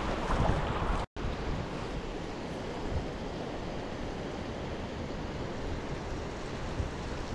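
Creek water running steadily over a shallow riffle, an even rushing hiss. It is louder for the first second, then cuts out abruptly for an instant before the flow sound resumes.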